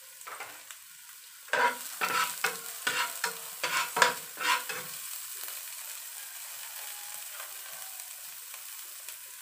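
Chopped onion sizzling in olive oil in a nonstick frying pan, with a spatula stirring and scraping against the pan in a quick run of strokes, about three a second, from about a second and a half in to about five seconds. After that only the steady frying sizzle.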